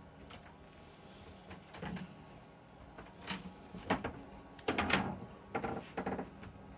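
A series of irregular knocks and clatters, the loudest cluster about two thirds of the way through, over a low steady background hum.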